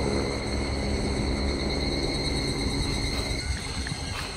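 A steady, high insect trill over a low rumble that eases off about three and a half seconds in.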